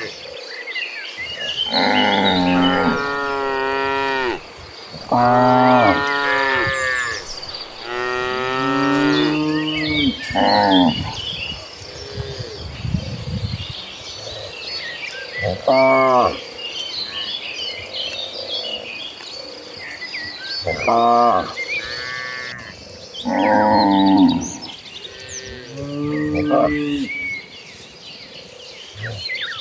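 A herd of cattle mooing: many long calls from several cows, some overlapping, with pitch that bends through each call. They come thick in the first ten seconds or so, then single moos every few seconds.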